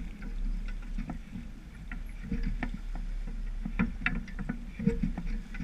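Sailboat hull moving through choppy water, with irregular slaps and splashes of water against the bow over a steady low rumble of wind on the microphone.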